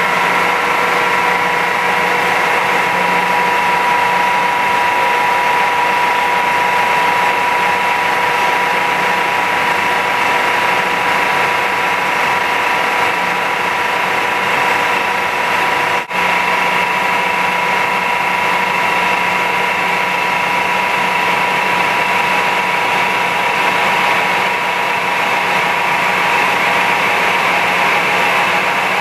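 Ingersoll CNC planer mill running with its 90° right-angle head attachment: a steady machine hum with several constant whining tones, broken by a brief drop in level about sixteen seconds in.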